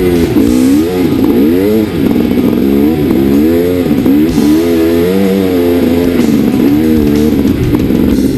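Dirt bike engine revving up and down over and over as the rider works the throttle on a sandy track.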